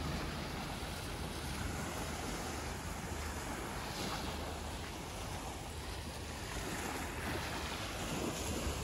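Steady wash of small waves breaking on a sandy shore, with wind rumbling on the microphone.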